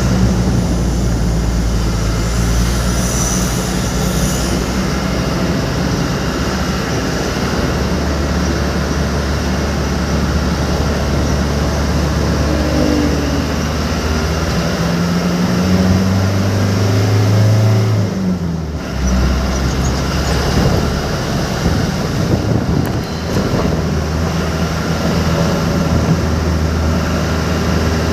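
A vehicle engine drones steadily while driving, under a constant hiss of rain and wet road. About fifteen seconds in, the engine note climbs for a few seconds, then falls away sharply and picks up again.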